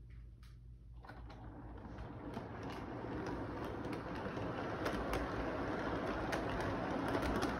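Model train running on its track as it approaches, its wheel and motor noise growing steadily louder from about a second in, with light clicks from the track.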